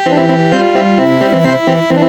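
Telolet basuri multi-trumpet bus horn set, MIDI-controlled, playing a fast tune. Several horn notes sound together and change every fraction of a second.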